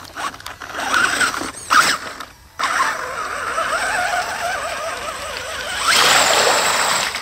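Electric motor of a radio-controlled mud truck whining, its pitch rising and falling with the throttle as the tyres churn through mud. Near the end a louder hiss of splashing and spinning tyres takes over as it drives through a muddy puddle.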